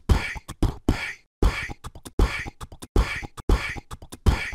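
Beatboxing: a steady repeating beat of low kick-like thumps and sharp snare-like hits.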